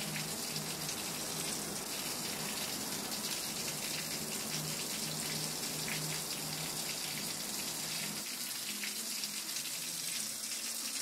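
Water running and splashing steadily, a continuous pouring hiss, with a low hum underneath that drops away about eight seconds in.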